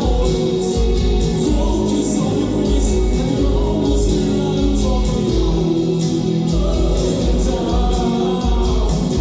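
A live band playing a song with singing: held sung notes over a heavy, pulsing low bass, with cymbals struck steadily throughout.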